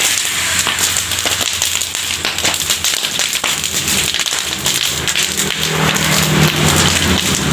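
Food or fuel burning on a grill, sizzling and crackling with many small sharp pops. A low steady hum joins in about six seconds in.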